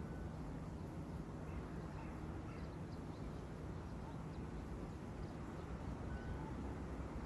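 Distant outdoor town ambience: a steady low hum and rumble, with a few short, faint bird chirps over it.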